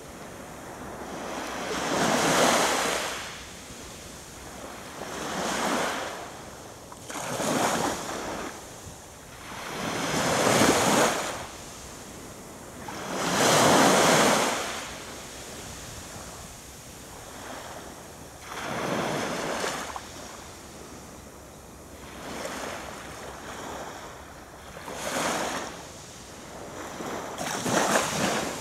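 Small, gentle waves breaking and washing up a sand beach, each wash swelling and fading over a second or two, about nine times with quieter lulls between.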